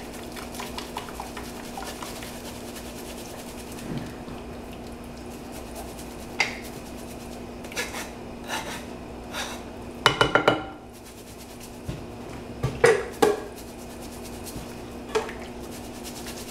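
Utensil clinking and scraping against a wire mesh strainer while ground shrimp shells are worked through it, with scattered knocks and a quick run of knocks about ten seconds in. A steady low hum runs underneath.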